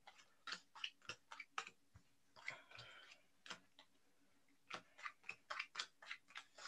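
Playing cards being dealt one at a time onto a table: a run of faint light clicks and taps as each card is laid down, with a short rustle of card handling a little before the middle.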